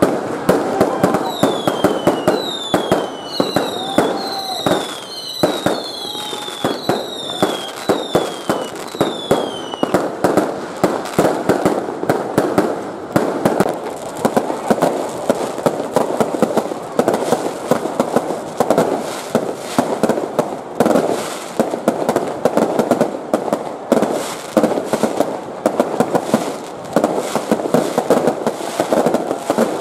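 Fireworks and firecrackers going off nonstop in a dense barrage of crackles and bangs. In roughly the first ten seconds a string of whistles, each falling in pitch, rises above the crackling.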